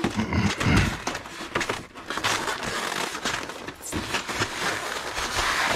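Cardboard box and foam packaging insert being handled and slid apart: continuous rustling and scraping with scattered clicks and a few soft knocks.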